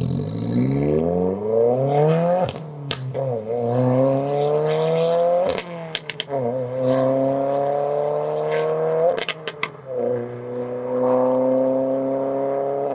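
2022 Subaru WRX's turbocharged flat-four through an aftermarket axle-back exhaust, accelerating hard away through three upshifts: the note climbs in each gear and drops at each shift, with a few sharp pops at the gear changes.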